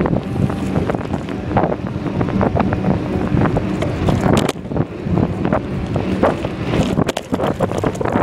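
Wind buffeting the microphone of a phone carried on a moving bicycle, a loud, uneven rumble with frequent short knocks.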